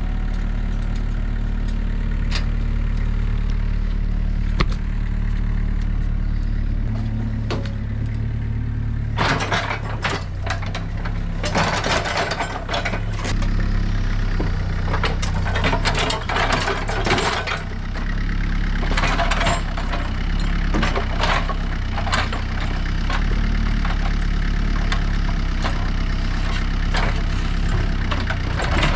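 Compact excavator's engine running steadily, with bursts of scraping and clanking from the bucket and machine working dirt through the middle of the stretch.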